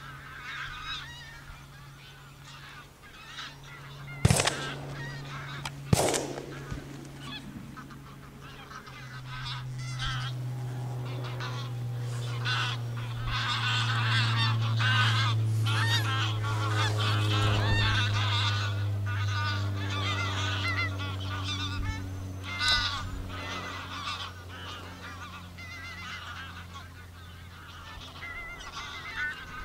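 A flock of greylag geese honking steadily, with two shotgun shots about 4 and 6 seconds in. A low hum slowly swells and fades under the calls in the middle stretch, falling slightly in pitch.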